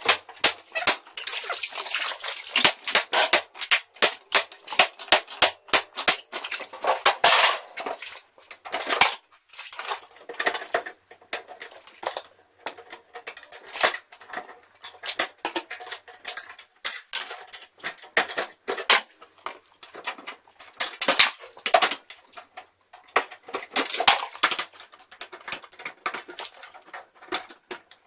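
Repeated sharp metallic clanks and rattles in quick runs, several a second, with short pauses between the runs.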